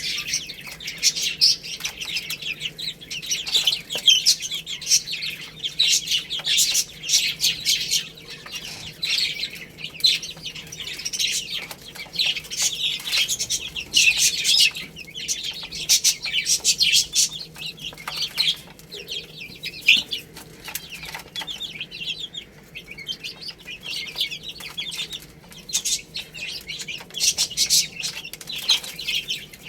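A group of baby chicks peeping non-stop, many high-pitched chirps overlapping, with busier and thinner stretches.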